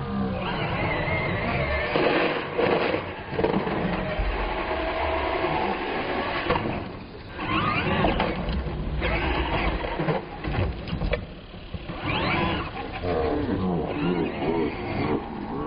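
Radio-controlled monster truck driven hard over ramps on concrete: its motor whines up and down in pitch as the throttle is worked, with tyre scrub and several knocks as it lands and hits the ramps.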